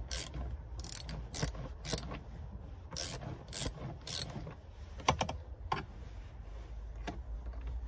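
Socket ratchet wrench clicking in short, irregular runs as a seat bolt is undone, with the clicks thinning out about halfway through.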